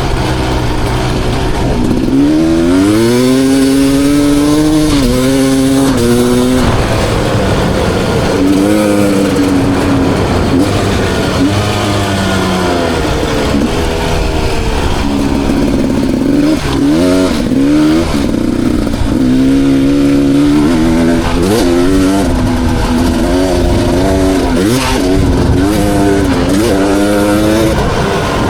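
2020 Beta 300 RR dirt bike's single-cylinder two-stroke engine being ridden hard, its pitch repeatedly climbing under throttle and dropping back as the rider shifts and backs off.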